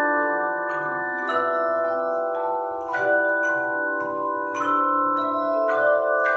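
Handbell choir ringing a tune: chords of bells struck every second or two, each note ringing on and overlapping the next.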